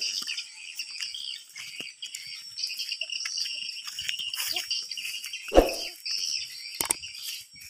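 Steady high-pitched chirring of insects with birds chirping over it, in a tropical rural outdoor setting. A single short thump about three-quarters of the way in.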